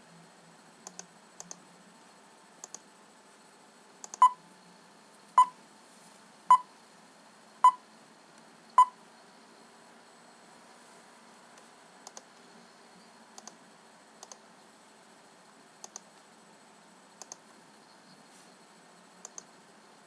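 Five short, pitched beeps about a second apart, a countdown sound effect, with quick pairs of mouse clicks before and after them.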